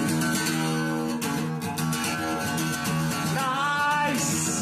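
Steel-string acoustic guitar strummed in quick, even chords.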